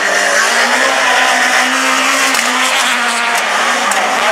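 Peugeot rallycross car's engine running hard as the car drives through a corner on the wet track, a steady drone with a few sharp cracks in the second half.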